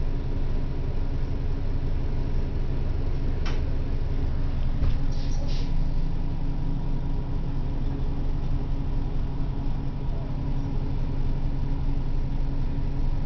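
Orion V transit bus's engine running steadily, heard from inside the passenger cabin as a constant low hum with a faint steady whine above it; a single sharp click about three and a half seconds in.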